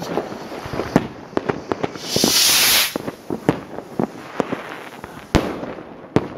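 Firecrackers and fireworks going off: scattered sharp bangs at irregular intervals, with a loud hissing burst lasting about a second, some two seconds in.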